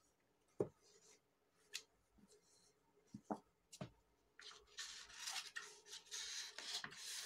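A few light taps, then a hand rubbing and sliding across a large sheet of pattern paper, a dry rustling rub through the second half.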